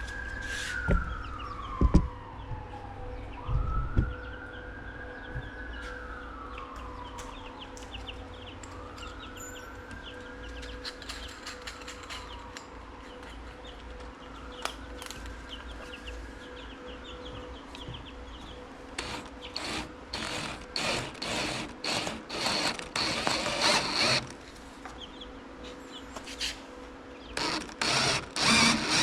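A siren wails in the distance, rising and falling about every five seconds and fading out, with a few knocks. From about two-thirds of the way in, a power drill runs in short repeated bursts, boring a rope hole through the epoxy-filled wooden bow of a kayak.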